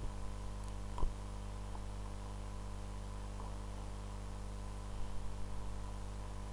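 Steady electrical mains hum with faint hiss from the recording setup, with a single short click about a second in.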